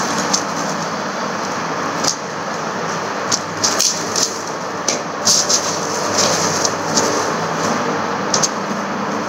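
Plastic packaging crinkling in short, scattered bursts as it is handled and unwrapped, over a steady rushing background noise.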